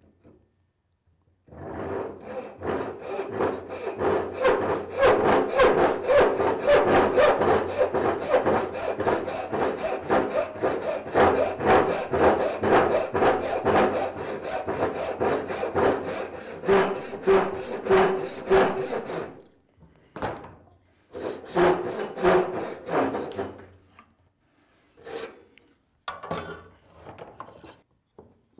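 Handsaw ripping down the cheek of a poplar tenon along the grain, in quick, even back-and-forth strokes. The sawing goes on for about eighteen seconds, stops, and a short second run of strokes follows a couple of seconds later.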